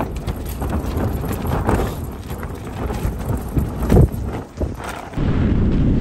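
Rustling of nylon tent fabric and irregular knocks and thumps as a handheld camera is carried out through a tent door. About five seconds in, the sound changes suddenly to strong wind buffeting the microphone.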